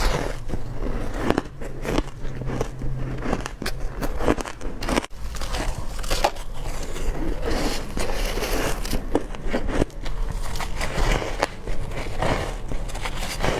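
A person biting and crunching hard crushed ice: repeated sharp crunches and crackles at an uneven pace, several each second.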